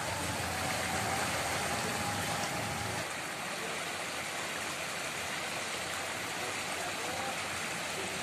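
Steady rush of brown floodwater flowing across a road. A low truck engine sound under the water drops away about three seconds in.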